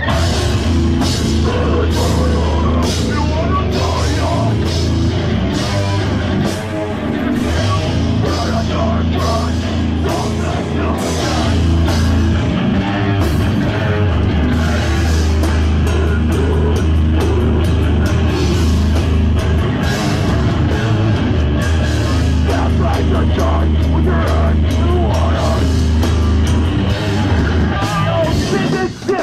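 A heavy rock band playing live at full volume: distorted electric guitar, bass and drum kit, with a short break near the end.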